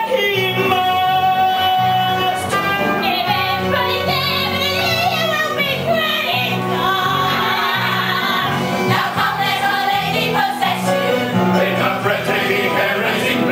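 A musical-theatre ensemble sings with a live band, mixed male and female voices over steady accompaniment.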